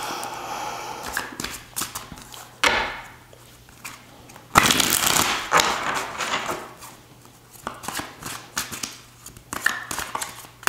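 A tarot deck being shuffled and handled: papery rustles and riffles, with a longer, louder burst of shuffling about four and a half seconds in.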